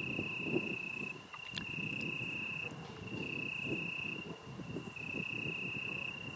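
An insect trilling: a steady, high-pitched trill in phrases of about a second and a half, broken by short gaps, over uneven low background noise.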